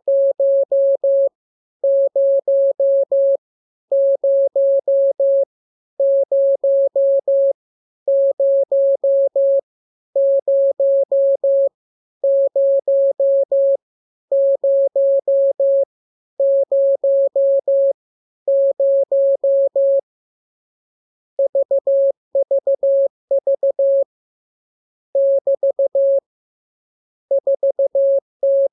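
Morse code sent as a single mid-pitched tone keyed on and off, the same group of characters repeated about every two seconds; after a pause about twenty seconds in, a different run of characters begins.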